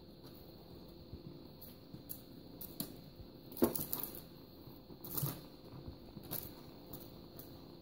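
A kitten batting and pouncing at a feather wand toy: scattered soft knocks and rustles from its paws and the feathers, the loudest about three and a half seconds in and again just after five seconds.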